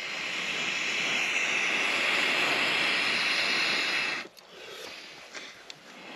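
Long steady rush of breath blown through a bamboo blow pipe into damp embers to revive a dead campfire, lasting about four seconds and stopping abruptly. A few faint ticks follow.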